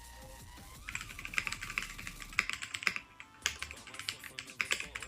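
Kreo Hive 65 mechanical keyboard being typed on: fast, uneven key clicks starting about a second in, with a brief pause near the middle. A faint steady tone sounds before the typing begins.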